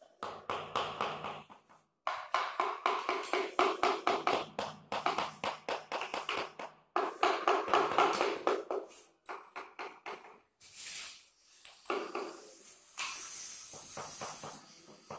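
Rapid tapping of a hammer on marble inlay pieces, setting them into wet mortar, in several runs with short pauses. Near the end comes a higher scraping hiss.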